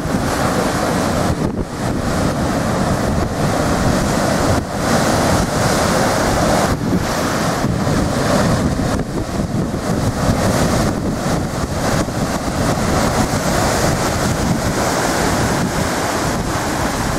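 Steady rush of large storm-swell surf and whitewater, with wind buffeting the microphone and thickening the low end.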